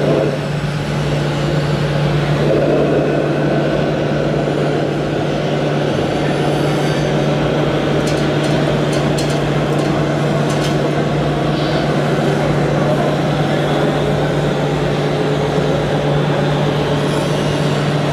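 Steady diesel-truck engine sound from a radio-controlled scale tipper truck's sound unit as it works, with a general hum beneath it and a few light clicks in the middle.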